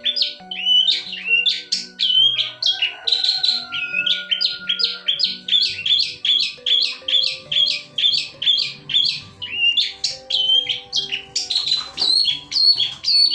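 Long-tailed shrike (pentet) in full, continuous song: a fast series of short, sharp chirping notes, about three a second, with soft background music underneath.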